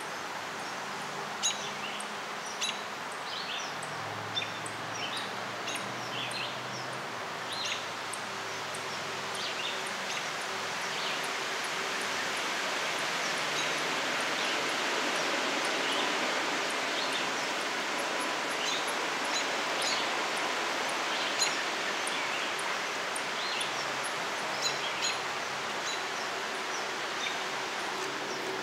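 Outdoor ambience: a steady hiss that swells through the middle and eases off again, with small birds chirping on and off throughout.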